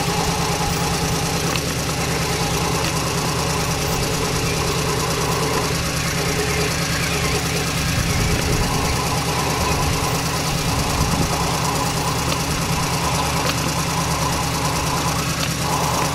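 Radio-controlled dump truck running with a steady engine-like hum as it drives loaded over dirt.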